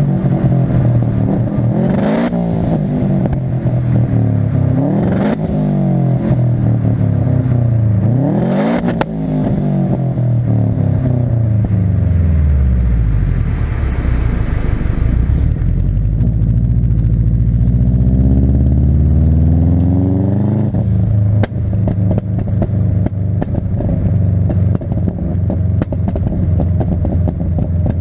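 Subaru Impreza's turbocharged flat-four engine revving hard four times in quick succession, each rev ending in a sharp exhaust crack as it drops. Then comes a long fall in revs and a slow climb, and the engine settles into steady running with a rapid crackle of small pops from the exhaust.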